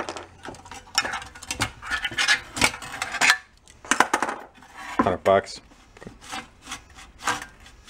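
Lawn mower's sheet-metal recoil starter housing being handled and turned over on a workbench: irregular clinks, taps and scraping of metal and plastic parts.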